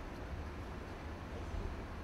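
Steady factory-floor background noise: a low rumble with a faint hiss over it, with no distinct knocks or machine rhythm.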